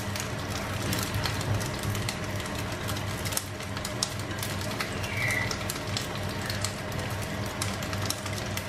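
Vegetables sizzling and crackling in a frying pan with a little added water, while a spatula stirs and tosses them, making many small ticks and scrapes.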